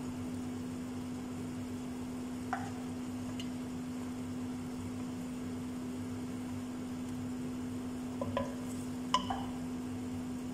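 Fish pieces sizzling lightly in an aluminium pot as their remaining liquid cooks off, over a steady low hum. A wooden spatula knocks against the pot once a few seconds in and several times near the end, the last knock the loudest.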